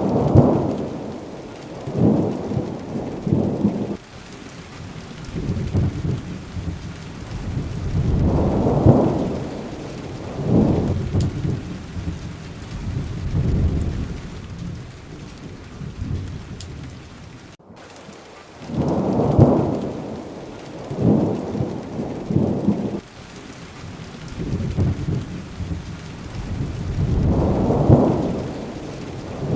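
Steady rain falling, with low rolling rumbles of thunder swelling and fading again and again, every few seconds. A little past halfway the sound cuts out for an instant, then the same rain-and-thunder pattern repeats.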